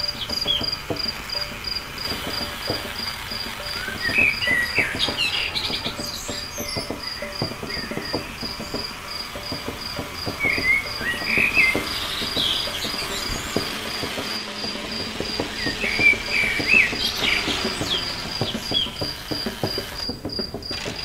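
Crickets trilling steadily in an even pulsing chirp, with birds chirping in short bursts every few seconds over a low crackling rustle.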